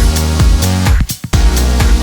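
Background electronic dance music with a steady beat and heavy bass, briefly dropping out about a second in.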